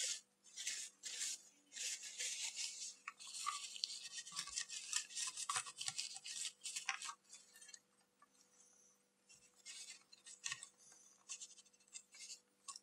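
Kitchen paper towel rubbing and scrubbing against the plastic case and circuit board of a Walkman, in quick rapid strokes. It is busiest in the first seven seconds, then comes in short scattered wipes.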